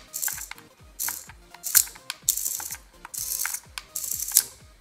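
Small hobby servo motor swinging its horn back and forth on radio-control commands: about six short bursts of gear buzz, each under half a second, with brief pauses between them.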